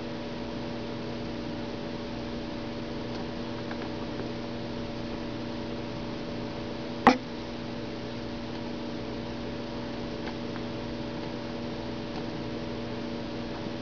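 Steady electrical hum with several steady tones over a faint hiss, with one sharp click about seven seconds in.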